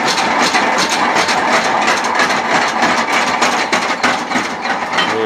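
A motor-driven blacksmith's power hammer running, with many rapid, sharp strikes one after another in a continuous clatter.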